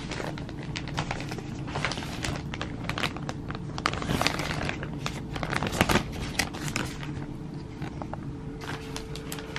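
Thin plastic garment bag being crinkled and pulled open by hand, with irregular crackling that is busiest in the middle.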